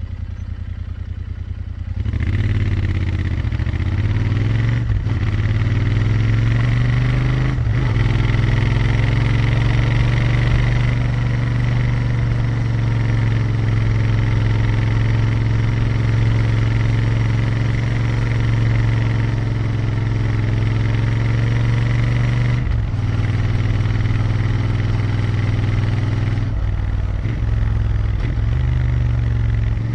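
Royal Enfield Interceptor 650's 648cc parallel-twin engine and exhaust under way. The engine is soft at first, then pulls hard with its pitch rising and two short breaks for gear changes. It holds a steady cruise and eases off near the end.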